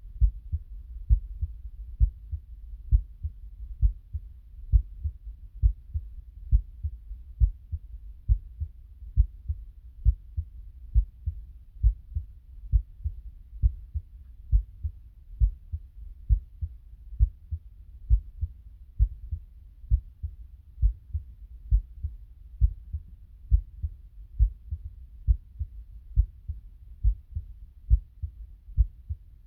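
A human heartbeat recorded with a phone's microphone: a steady rhythm of low, dull thuds, about one beat a second.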